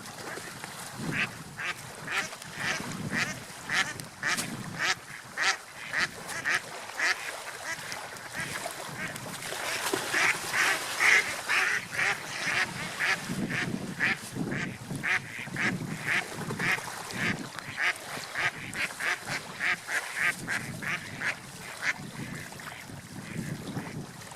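Ducks quacking in a long run of short calls, about two or three a second, busiest around the middle.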